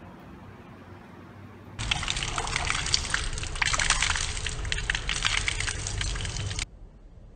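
Tap water running from a brass ablution tap and splashing onto cupped hands and into the tiled trough below as a man washes his face. It cuts in suddenly about two seconds in and stops abruptly near the end.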